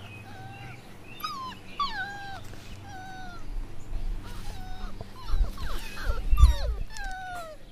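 Puppies whining and whimpering, a string of short high calls that rise and fall and sometimes overlap, which the owner takes for sleepy, overheated puppies wanting their bed. A couple of low thumps come about five and six seconds in.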